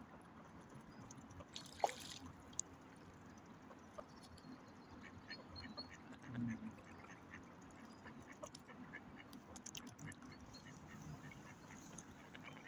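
Faint waterfowl calls over soft water sounds from a mute swan dabbling and drinking at the bank's edge, with a brief sharp noise about two seconds in.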